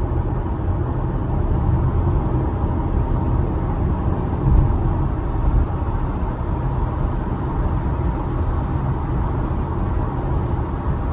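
Steady road and tyre noise heard inside the cabin of an electric Tesla Model Y driving on a wet road: a low rumble with a hiss over it. Two brief thumps come about four and a half and five and a half seconds in.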